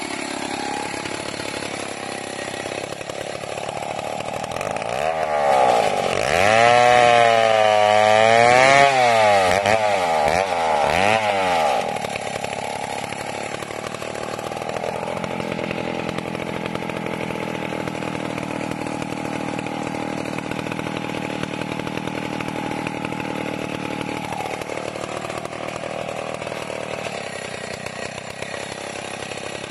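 Two-stroke chainsaw cutting a felled log. For several seconds near the start its engine pitch rises and falls as the revs swing, louder than the rest, then it settles to a steady running note.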